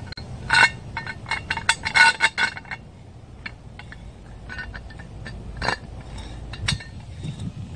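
Metal-on-metal clinking and short rings from steel parts being handled at a steel ground-screw pile: a quick cluster of clinks in the first three seconds, then scattered ones with two sharper strikes near the end.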